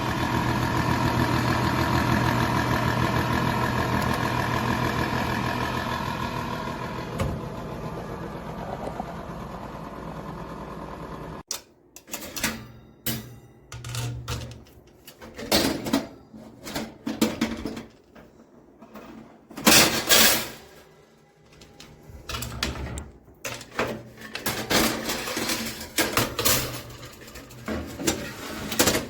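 A steady mechanical hum with a whine, cutting off abruptly after about eleven seconds. Then irregular knocks, clatters and rubbing of objects being handled.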